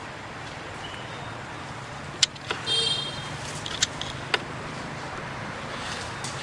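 Steady road traffic noise, with a few sharp clicks and a brief high-pitched squeal a little before the middle.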